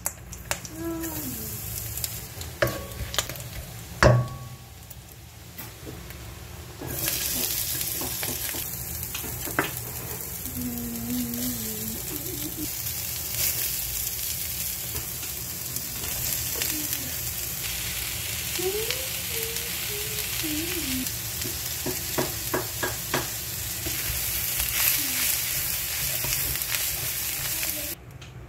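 Sliced vegetables sizzling in hot oil in a stainless steel wok as they are stir-fried with a spatula. A few sharp knocks come in the first few seconds, the loudest about four seconds in. From about seven seconds in, a loud, steady sizzle takes over, with the odd click of the spatula.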